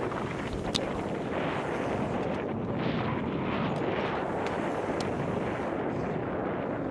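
Wind buffeting a helmet-mounted camera's microphone and tyres rumbling as a mountain bike rolls fast along a dirt trail, a steady rush of noise. A few sharp clicks break through it, about one a second.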